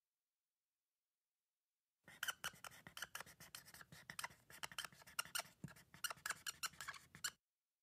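Marker writing on a whiteboard: a dense run of quick squeaks and scratching strokes, starting about two seconds in and stopping suddenly shortly before the end.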